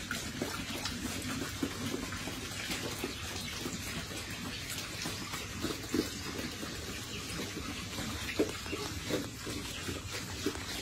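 A group of pigs eating wet feed from a trough: continuous slurping, smacking and sloshing, with a couple of louder smacks partway through.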